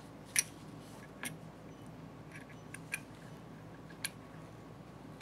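A few small sharp clicks of metal parts, the loudest about half a second in, as the filter wheel of a Haag-Streit rotary diaphragm selector is fitted onto its shaft and through its knob by hand. A faint steady hum runs underneath.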